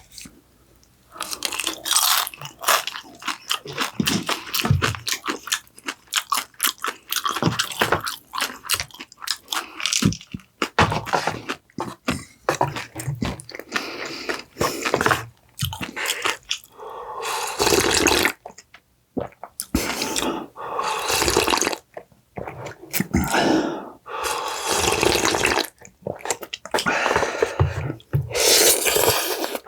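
Close-miked eating: repeated bites, crunching and wet chewing in short irregular bursts with brief pauses.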